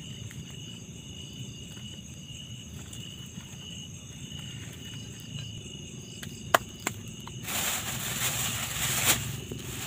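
Crickets chirring steadily, with two sharp clicks a little after halfway. Near the end a loud rustling hiss starts and carries on.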